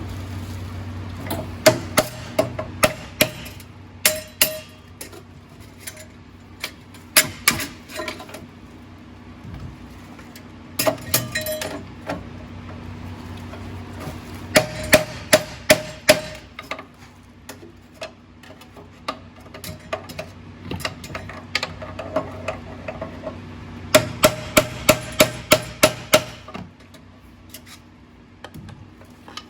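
Hammer blows on metal in short bursts of quick strikes, several groups with pauses between, some with a brief metallic ring: knocking a stuck engine part loose to work it free.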